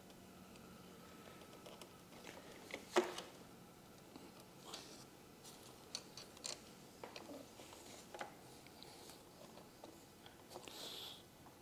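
Pliers bending motorcycle battery cable ring terminals, reshaping them from a 90-degree top-post bend to fit side posts: faint scattered metal clicks and scrapes, the sharpest a single click about three seconds in, with a brief hiss near the end.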